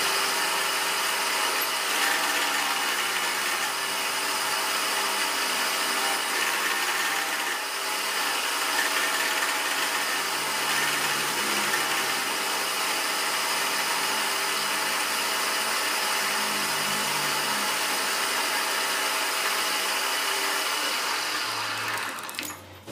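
Machine spindle turning a single-point fly cutter that is cutting a pocket into an aluminium piston crown: a steady running and cutting hiss with a constant whine. It cuts out near the end as the cutter comes clear of the piston.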